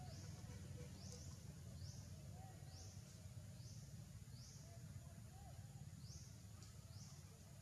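Faint natural outdoor ambience: a high, rising chirp repeated roughly once a second over a low rumble.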